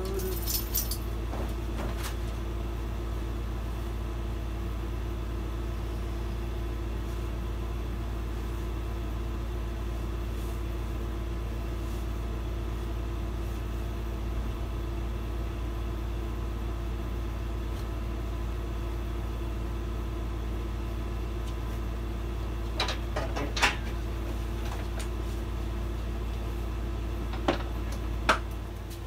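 Steady hum of an air conditioner running inside a converted camper bus, with a few sharp knocks near the end.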